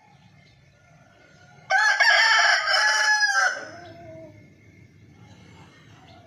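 A rooster crowing once: a single cock-a-doodle-doo about two seconds long, starting nearly two seconds in and trailing off.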